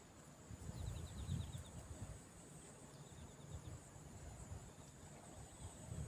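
Faint steady high-pitched drone of crickets or other insects, with a low rumble of wind on the microphone swelling in the first couple of seconds. Two short runs of rapid ticking come about a second in and again about three seconds in.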